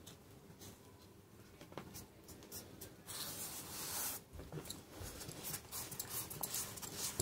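Hands rubbing and pressing a leather insole down onto a glued sandal footbed: faint scratchy rubbing that gets louder about three seconds in, with light rustling and small taps.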